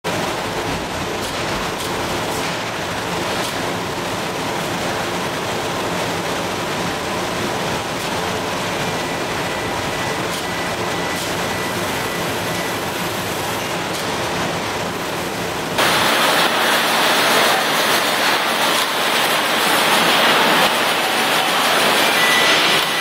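Steady clatter and hum of a sardine-can production line, with cans riding a conveyor and the machinery running. About 16 seconds in, the sound cuts to a louder, hissier mix of line noise.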